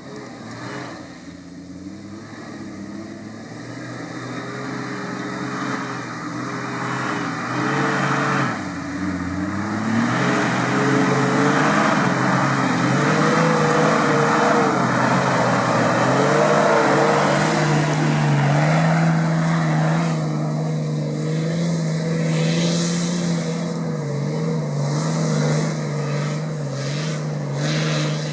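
Off-road 4x4 engine running with uneven revs, its note rising and falling, loudest about midway, then settling to a steadier drone near the end.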